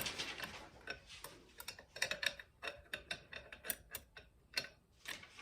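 Irregular light metallic clicks and clinks as 700R4 transmission clutch plates, steels and frictions, are handled and set into the 3-4 clutch pack.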